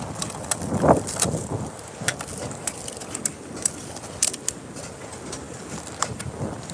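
A white foam takeout clamshell being handled and a rubber band worked off it: a string of short, sharp clicks and creaks, the loudest about a second in.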